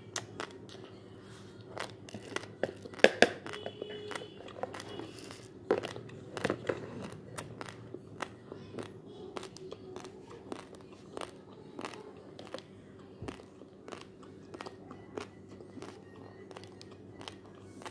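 Raw basmati rice being chewed: a rapid, irregular crackle of small crisp crunches, with a couple of louder crunches about three and six seconds in, over a steady low hum.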